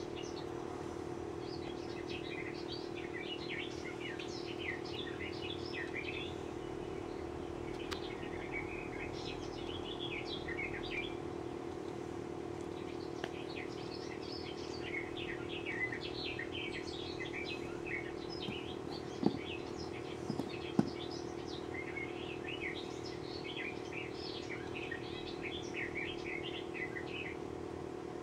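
Small birds chirping and twittering in quick clusters over a steady low hum. Two sharp clicks come a little after two-thirds of the way through.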